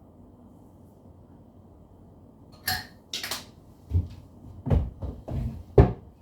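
Kitchen handling noises: two sharp clatters, then four dull knocks and thumps spread over about three seconds.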